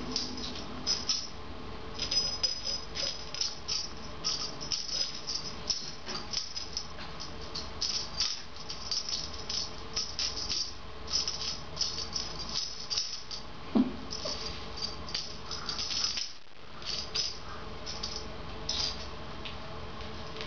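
A cat toy's rattle jingling in quick, irregular bursts as kittens bat, tug and drag it across a hard floor.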